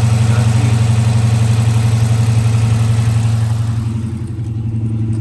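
Dodge Charger's engine idling steadily, run with a leaking heater core hose T-connector; the sound cuts off suddenly at the end.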